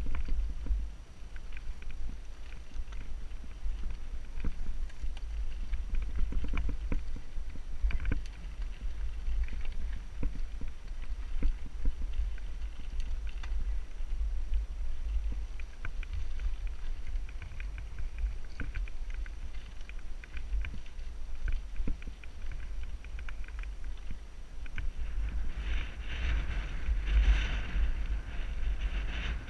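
Wind buffeting a helmet-mounted action camera's microphone on a moving mountain bike, with scattered clicks and rattles from the bike and its tyres on a rocky dirt trail. It grows louder and hissier near the end.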